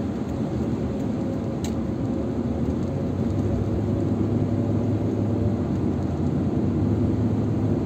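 Steady engine and tyre noise of a car driving along a city street, heard from inside the cabin. The low hum grows a little louder about halfway through.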